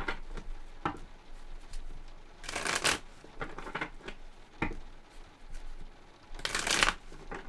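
A deck of tarot cards being shuffled by hand: two longer shuffling bursts, one about two and a half seconds in and one near the end, with lighter card taps and flicks between.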